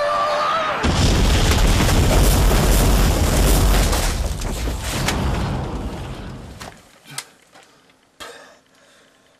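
Explosion sound effect: a sudden loud boom about a second in, followed by a long rumble that fades away over several seconds, then a few faint clacks.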